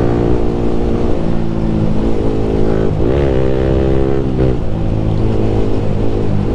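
Sport motorcycle engine running steadily at cruising speed, heard from on board the bike, with a brief rise and fall in engine pitch about three seconds in.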